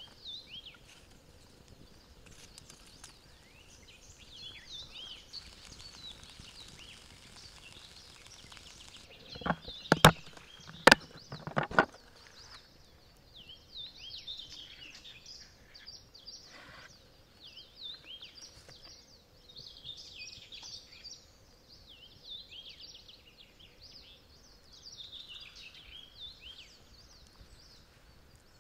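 Birds singing and chirping in the background, with about five or six sharp knocks in quick succession about ten seconds in.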